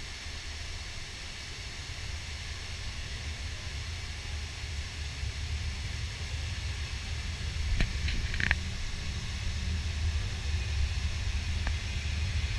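Steady hiss of falling water from a man-made waterfall over a low rumble that slowly grows louder, with a few short clicks about eight seconds in.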